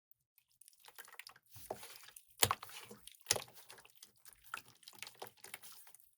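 Irregular small clicks, taps and wet squishes of hands-on work with a miniature model and wet concrete mix, with two sharper knocks near the middle.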